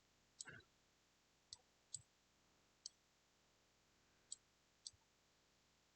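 Near silence broken by about six faint, sharp computer mouse clicks, spaced irregularly.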